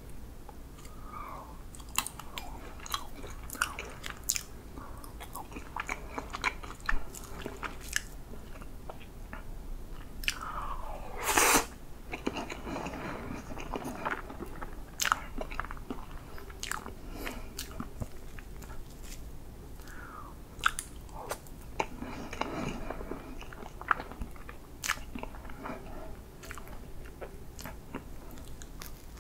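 Close-miked mouth sounds of someone eating whipped-cream chocolate cake: wet chewing and lip smacking with many short sharp clicks. The loudest moment comes about a third of the way in, with another busy stretch later on.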